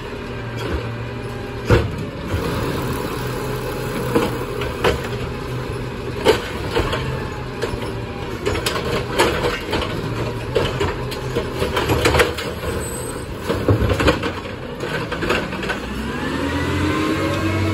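Peterbilt 520 automated side-loader garbage truck running while its hydraulic arm lifts and dumps recycling carts, with repeated clanks and the clatter of recyclables falling into the hopper. Near the end the engine revs up in a rising whine.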